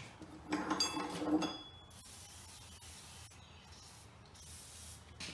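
A few light metallic clinks, then an aerosol can of rust-preventive oil spraying in several short hissing bursts.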